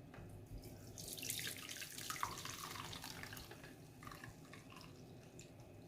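Blended bitter kola and water being poured through a strainer: liquid pours and splashes for a couple of seconds starting about a second in, then trickles and drips.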